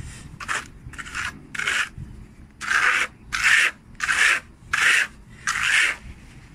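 Plastering trowel spreading and smoothing wet ready-mix cement plaster over concrete in repeated strokes, about one every two-thirds of a second. The first three strokes are short and light; the last five are longer and louder.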